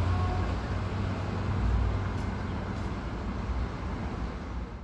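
Steady low rumble of street traffic, easing off slightly toward the end.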